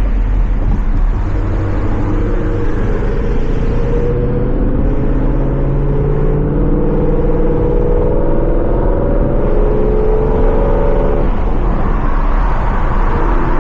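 Ford Mustang GT's 5.0 Coyote V8 through a Corsa Xtreme cat-back exhaust, pulling under throttle with its pitch rising steadily. About eleven seconds in the pitch drops at a gear change, then climbs again.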